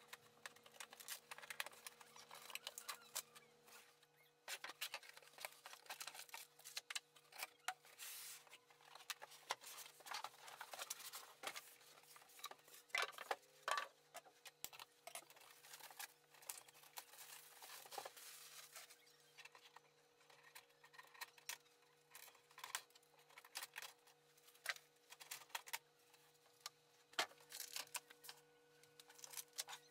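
Quiet rustling, crinkling and scattered clicks and knocks as a printer is unpacked by hand from its cardboard box and plastic wrapping, with a faint steady hum underneath.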